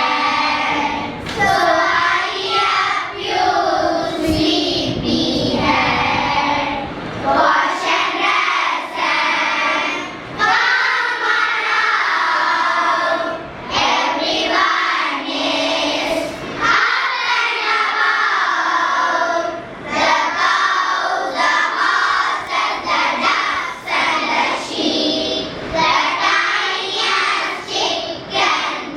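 A group of children singing together, phrase after phrase with short breaks between lines.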